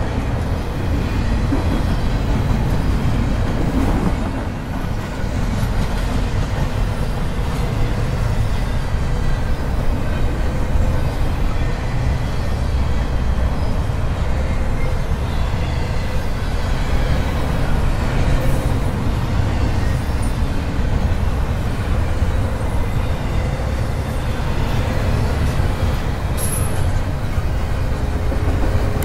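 Double-stack intermodal container well cars of a freight train rolling past. Their steel wheels make a steady, continuous rumble on the rails, with faint thin squealing tones in places.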